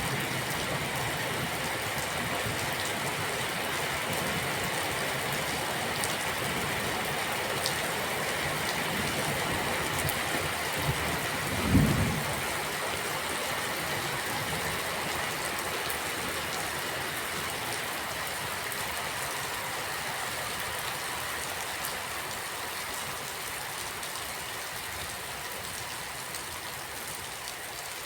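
Steady rain falling, an even dense hiss, with one brief low thump about twelve seconds in. The rain grows slightly quieter toward the end.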